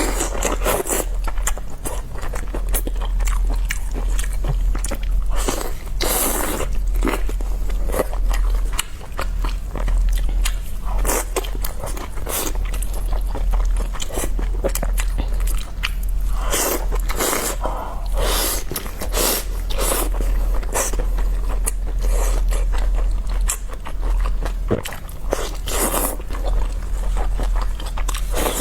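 Close-miked chewing and biting of steamed dumplings: many wet mouth clicks with occasional longer, louder bites, over a steady low hum.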